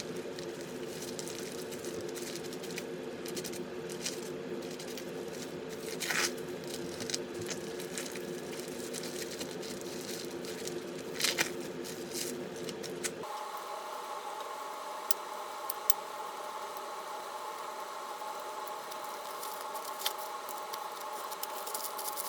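Kitchen cooking sounds: crackling, light clicks and scraping over a steady appliance hum. The hum changes abruptly to a higher-pitched one about thirteen seconds in.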